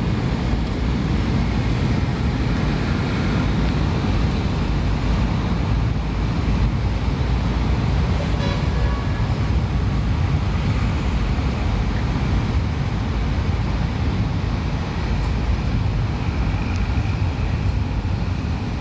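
Steady low rumble of city street traffic heard from high above, with a faint short tone about halfway through.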